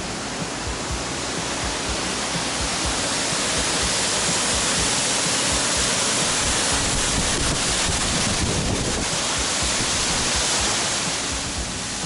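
Mountain waterfall pouring down a rock face: a steady rush and spatter of falling water, swelling louder a couple of seconds in and easing again near the end.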